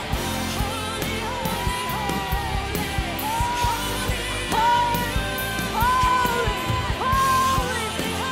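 Live worship band playing: drums, electric guitar and keyboard under a singer who holds a series of long, high, wordless notes, each rising into a held pitch, in the second half.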